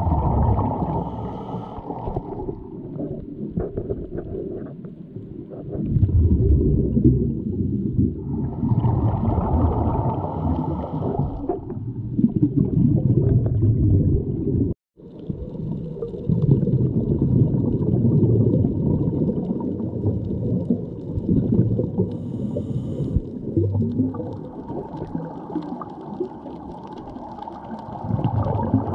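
Muffled underwater rumbling and gurgling of water moving around a GoPro camera while snorkeling. It swells and fades every few seconds and cuts out for a moment about halfway.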